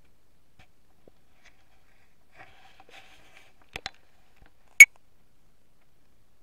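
Porcelain dishes being handled in a quiet room: a faint rattle, two small clicks, then one sharp clink about five seconds in.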